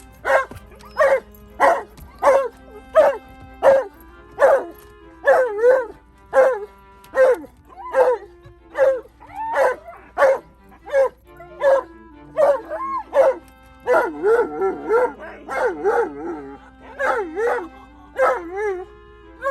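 Alaskan Malamute barking and howl-barking over and over, about one to two calls a second with pitch sliding up and down, worked up at the sight of a pack of other dogs. Steady background music plays underneath.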